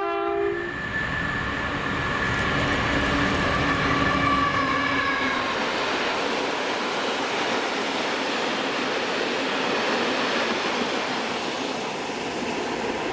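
A freight train passing close by: a short horn blast right at the start, then the locomotive's engine tone for about five seconds, dropping slightly in pitch as it goes by, followed by the steady rumble of the wagons running past.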